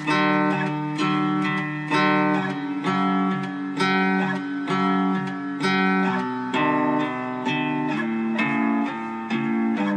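Guitar music with no singing: plucked arpeggio notes ringing over a low bass note, with a strong pluck about once a second.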